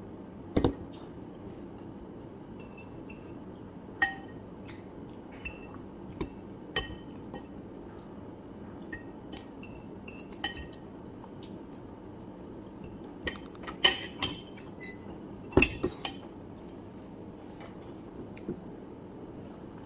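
Metal cutlery clinking and tapping against a ceramic dinner plate in scattered, irregular clinks, over a steady low background hum.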